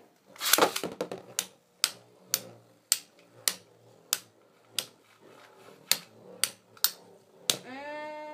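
Two metal Beyblades, Pegasus and Eagle, ripped off a string launcher in a brief rush of noise, then clashing in the stadium with sharp clacks about twice a second. A short rising tone near the end.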